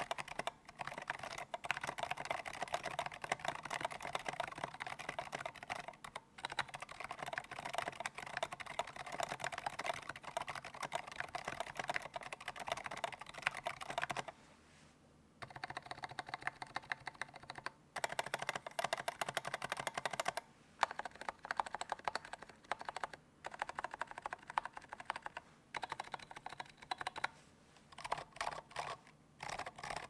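Fast typing on a custom mechanical keyboard with stock 78g Zeal Zilents silent tactile switches, a POM plate in a clear acrylic sandwich-mount case, and tall SA keycaps, giving a very muted, deep thock. It is a steady stream of keystrokes for about half the time, then a short pause, then shorter runs of typing with gaps between them.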